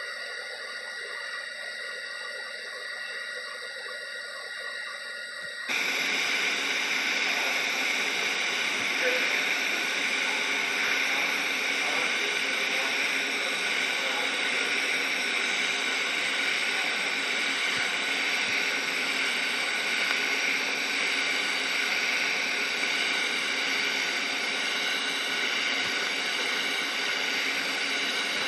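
Welding arc hissing steadily; about six seconds in the noise suddenly jumps louder and then holds steady.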